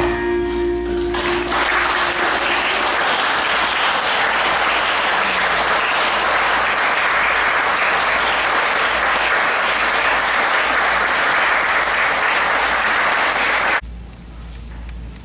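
The dance music ends, then an audience applauds steadily for about twelve seconds, stopping suddenly near the end.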